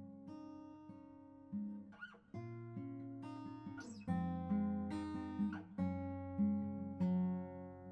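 Acoustic guitar music: strummed chords that change every second or two.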